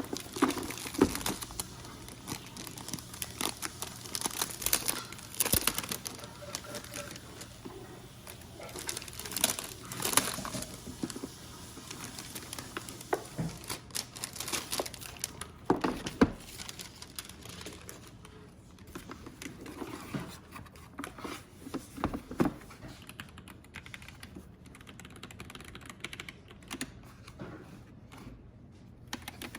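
Keyboard packaging crinkling and rustling as it is handled, with irregular clicks and knocks.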